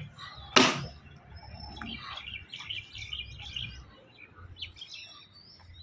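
Small birds chirping, with a quick run of high chirps between about two and four seconds in. A brief loud noise comes about half a second in.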